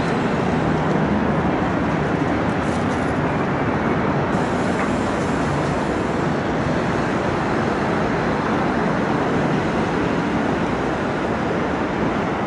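Steady city traffic noise from busy streets: a continuous din of road vehicles running past, with no single event standing out.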